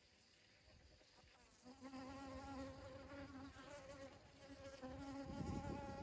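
Honeybee buzzing in flight as it forages at a dragon fruit flower: a steady wing hum that starts about two seconds in, dips briefly, and stops near the end, where a low rumble takes over.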